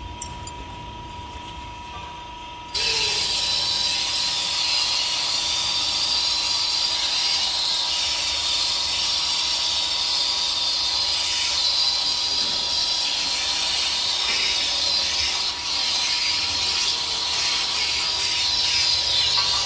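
A hand-held pneumatic tool on a shop air hose runs steadily inside a large OTR tire casing, a continuous loud hiss of compressed air that starts suddenly about three seconds in and cuts off just before the end.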